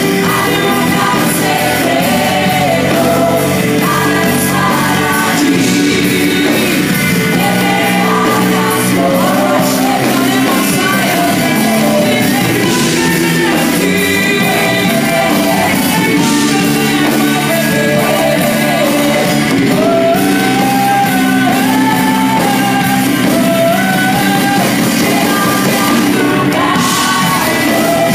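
Live church worship music: a band with drum kit and keyboards accompanying singers who lead a song, heard in a large hall.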